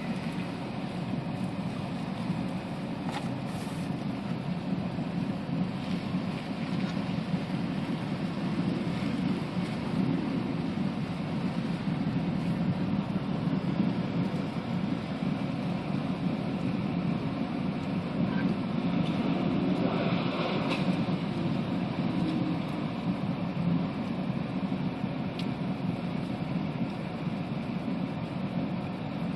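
Storm wind blowing across the microphone: a steady low rushing noise that swells and eases a little.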